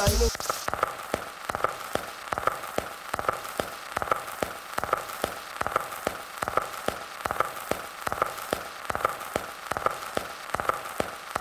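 Dense crackling: many short, irregular clicks like surface noise, with a faint high tone pulsing about two to three times a second behind it.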